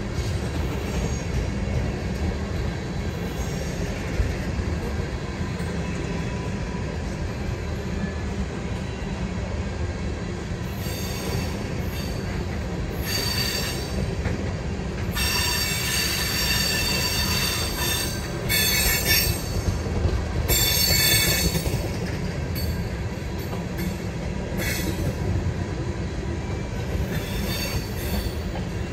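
Freight train of tank cars rolling past, a steady rumble of wheels on rail. Several bursts of high-pitched wheel squeal come and go over it from about the middle on, the longest lasting a few seconds.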